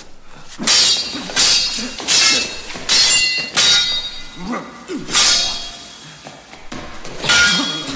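Sword blades clashing in a fight: about seven sharp metal-on-metal clangs at uneven intervals, each ringing briefly, with a couple of short grunts in the middle.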